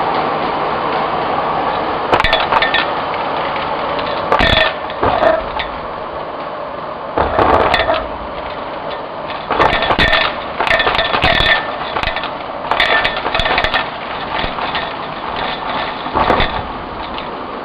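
Vacuum cleaner running steadily while its wand sucks up plastic pony beads and foil confetti from a hardwood floor along the skirting board. Repeated clattering and rattling, every second or two, as the beads and debris are pulled into the tube.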